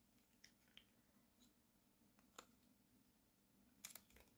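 Near silence: room tone with a faint steady hum and a few faint, isolated clicks, two of them close together near the end.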